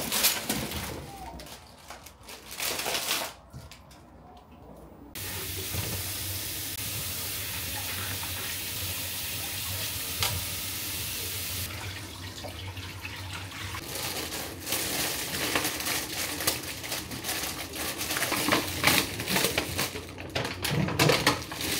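Kitchen tap running into a sink as vegetables are washed: a steady rush of water starts suddenly about five seconds in and stops about seven seconds later. It is followed by irregular handling noises and knocks at the sink.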